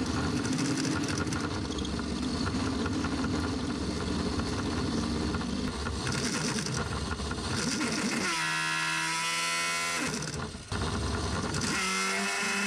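7x14 Chinese mini lathe running under its brushed motor, the spindle's worn bearings rattling loudly "like a bag of nails": the bearings are in bad need of replacement. About eight seconds in, the rattle gives way to a steadier pitched whine.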